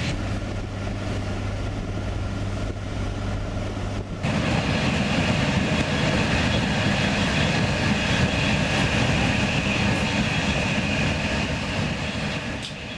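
Moving train running steadily, a rumble of wheels on rails with a low hum, heard from inside the carriage. It gets louder about four seconds in and fades away near the end.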